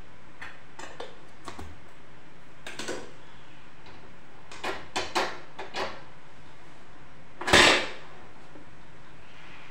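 A metal kadhai being handled on a gas stove: a scattering of light metal clinks and knocks, then one louder clatter about three quarters of the way through.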